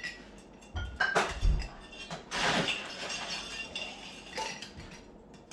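Ice cubes tipped from a scoop into a tall Collins glass, clinking against the glass and the ice already in it: a few separate knocks, then a longer rattle about two and a half seconds in.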